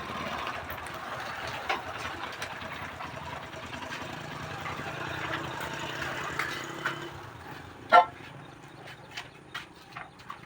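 Steady background noise with a low drone for several seconds, then one sharp metallic click about eight seconds in and a few lighter clicks, from hand tools working at the tyre's valve.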